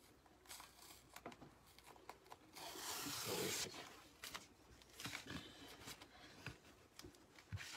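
An adhesive mesh stencil transfer peeled off its backing sheet: a rasping, tearing sound about a second long around three seconds in. Scattered light taps and rustles of handling on the table come before and after it.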